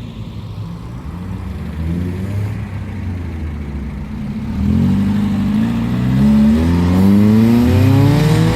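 Car engine and exhaust rumbling at low revs, then accelerating hard from about halfway through, its pitch climbing steadily and getting louder.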